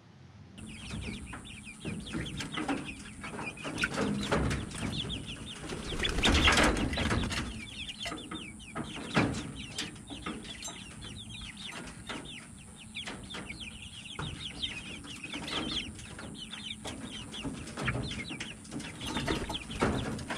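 Young grow-out chickens, about eight weeks old, peeping and clucking in a coop with wings flapping. There is a loud flurry of flapping about six seconds in and another brief one near nine seconds.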